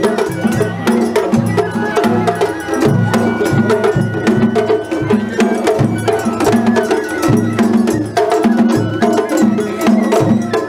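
Festival float's taiko drums played in a fast, steady rhythm, with sharp clicking strokes, and a high piping note held for a couple of seconds about three seconds in.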